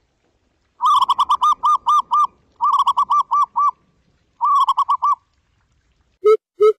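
Zebra dove calling in three bouts of rapid, evenly repeated cooing notes. Near the end a deeper, slower series of evenly spaced hoots begins.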